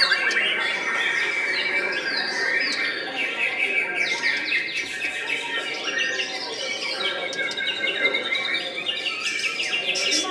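White-rumped shama (murai batu) singing a rapid, varied song of quick whistled glides and chirps without a break.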